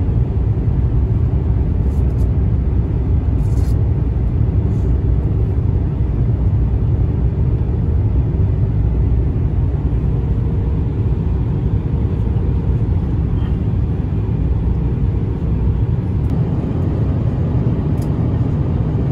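Airliner cabin noise in an Airbus A350-900 in flight: a steady low rumble of engines and airflow.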